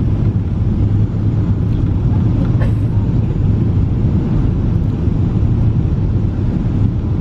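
Steady, loud cabin noise of a Boeing 777 on final approach, heard from a window seat: engine and airflow rumble with a strong low hum.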